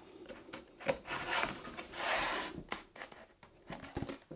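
Plastic strip scraping as it is pushed along the moulded groove of a polystyrene hive-body side panel: two strokes, the longer and louder one about two seconds in, with a few light knocks.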